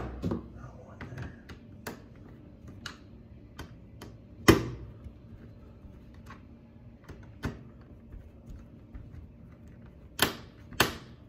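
Irregular sharp clicks and knocks of a Phillips screwdriver and hands working on a laptop's plastic case while taking out screws. The loudest knocks come at the start, about four and a half seconds in, and twice near the end, with lighter ticks between.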